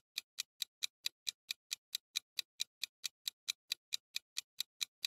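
Countdown timer sound effect: an even, clock-like tick repeating about four and a half times a second.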